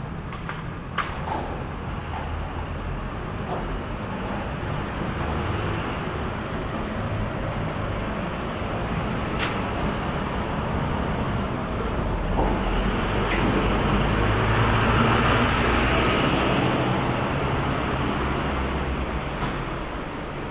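City street traffic noise: a steady hum of road traffic that swells as a vehicle passes, loudest a little past the middle and easing off near the end. A few sharp ticks stand out on their own.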